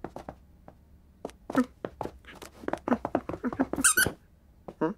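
Cartoon cat's voiced sound effects: a string of short chirps, grunts and mews, mixed with a quick run of light taps as it plays with a toy mouse on the floor. A shrill squeal comes about four seconds in.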